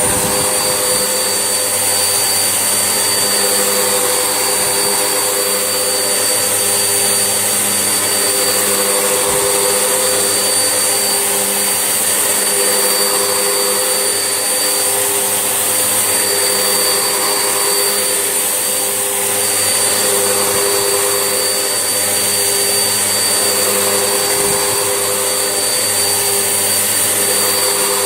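Vax Essentials vacuum cleaner running steadily with a high whine, its lower hum rising and falling slightly every few seconds.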